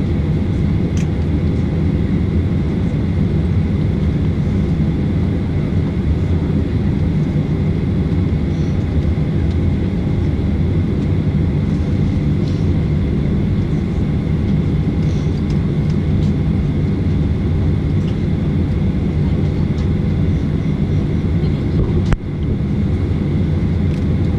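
Steady airliner cabin noise heard from inside the cabin while on the ground: a low rumble with faint, steady high whining tones. A short click near the end.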